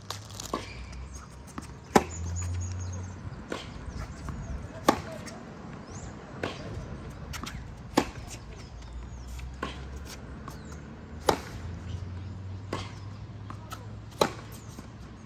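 Tennis rally on a hard court: tennis balls struck by racket strings, a sharp pop about every one and a half seconds. Every other hit is louder and closer, alternating with fainter hits from the far end of the court.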